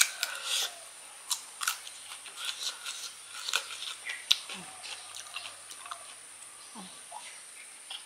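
Close-up eating of crisp kedondong (ambarella) fruit: a crunchy bite at the start, then chewing with many small wet clicks and smacks of the mouth.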